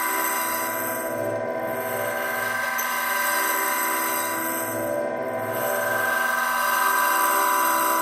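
Dense electronic drone from a DIY prepared multichannel sound system of recycled CRT-television speakers: a chord of many steady tones held over a low throb that pulses a few times a second.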